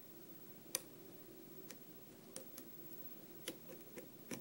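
Faint, irregular little clicks of a hook pick lifting and setting pins inside a six-pin Corbin Russwin pin-tumbler lock under light tension, about eight over four seconds. The picker takes the many small clicks for serrated pins.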